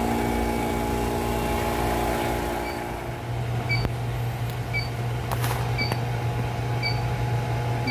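Steady low hum of machinery with a pitched drone over it that stops about three seconds in. From then on a short high beep repeats about once a second, and there is a single click past the middle.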